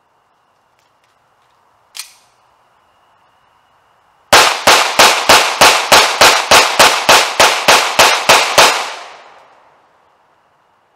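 A single sharp click, then a Beretta 92 9 mm pistol fired in a rapid, even string of about fifteen shots, roughly three a second, the reports echoing off for about a second after the last shot.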